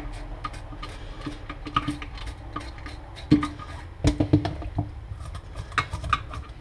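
Knife blade scraping the scales off a sea bream in a stainless steel sink: a quick, irregular run of scratchy clicks, with a few louder knocks about three and four seconds in.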